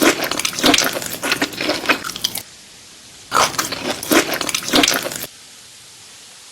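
Close-miked eating sounds: crisp, crackly crunching and squishing of food being bitten and chewed, in two bursts of about three and two seconds that start and stop abruptly.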